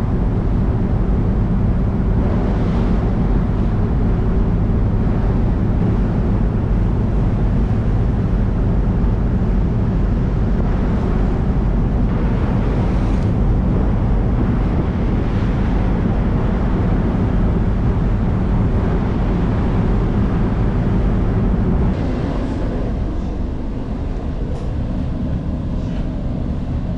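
Steady low engine drone mixed with wind noise on the microphone, easing slightly about twenty seconds in.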